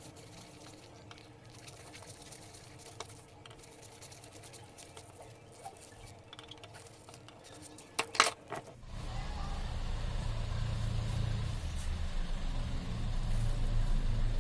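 Light metal clinks and handling with a couple of sharp clicks about eight seconds in, then a steady low motor hum starting about a second later.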